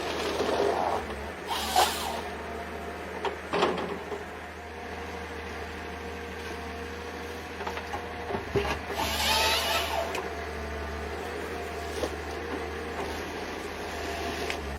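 Excavator running, a steady low engine hum and hydraulic whine, with several louder hissing, scraping bursts as the machine works, the longest about two-thirds of the way through.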